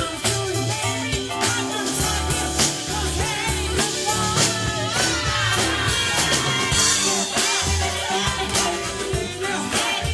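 Live soul-rock band playing: drum kit, bass and guitars, with a lead voice singing over them.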